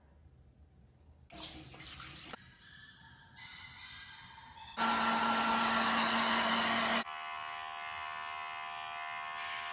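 Brief splashing of water, then a handheld blow dryer running on a kitten's wet fur: loud for about two seconds in the middle, then steadier and quieter with a hum of several tones.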